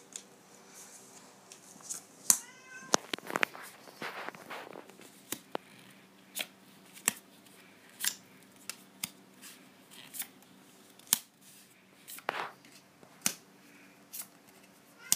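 A cat meowing in the background, about two and a half seconds in and again near the end, over a run of sharp clicks from trading cards being flipped through in the hand.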